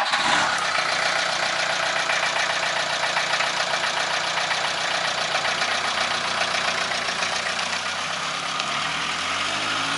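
A panel van's engine idling close by, starting abruptly. Near the end the engine note rises as the van begins to pull away.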